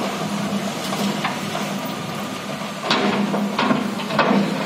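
Wheel loader's diesel engine running steadily, with several sharp knocks and clanks over it.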